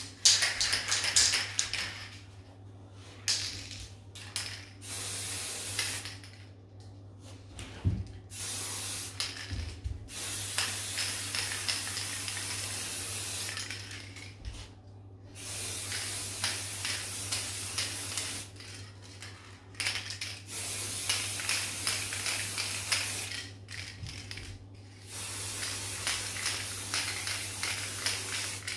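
Aerosol spray paint can spraying silver paint in a series of hissing bursts, the longest lasting several seconds, with short pauses between them.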